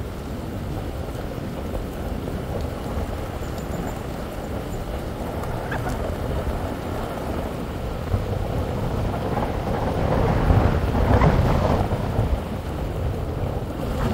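A vehicle driving: a steady low rumble of tyres and engine noise that swells louder about ten seconds in, then eases off.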